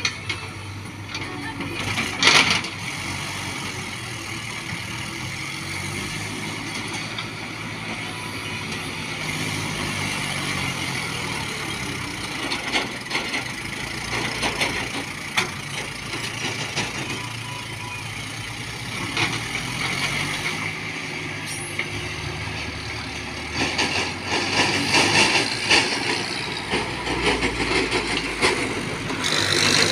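Diesel engines of a tractor and a JCB backhoe loader working in a quarry pit, their pitch rising and falling as they are revved under load. There is a sharp bang about two seconds in, and the machine noise grows louder and rougher near the end.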